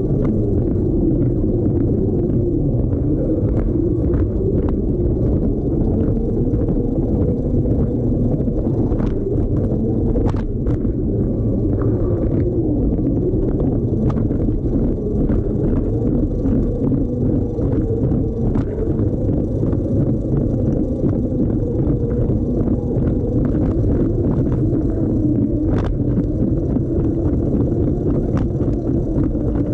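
Lego train's electric motor and wheels running along plastic track, heard from on board the locomotive: a steady rumble with a wavering hum and a few sharp clicks along the way.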